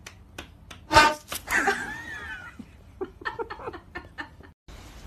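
A sharp knock about a second in, then a brief wavering voice-like sound and a person laughing in short, quick bursts.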